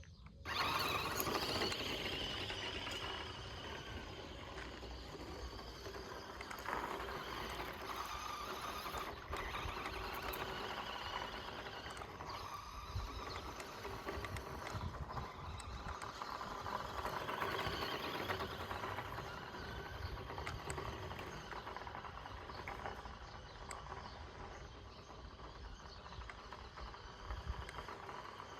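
1:14 scale Audi RS Q e-tron RC car driving over dirt: its small electric motor whining and its tyres scrabbling over loose ground, rising and falling with the throttle. It starts abruptly about half a second in.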